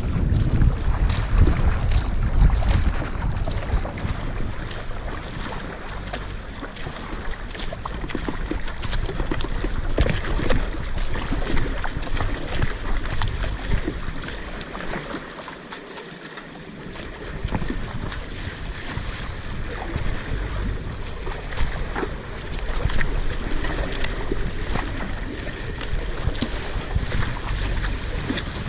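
Wind buffeting the microphone over a wash of water noise, with scattered small crackles; the low rumble drops away briefly a little past halfway.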